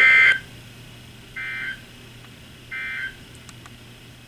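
Three short bursts of EAS SAME end-of-message data tones from a NOAA Weather Radio broadcast. Each is a buzzy warble between two pitches, and they come about a second and a half apart, the first the loudest, over faint radio hiss. They signal the end of the warning message.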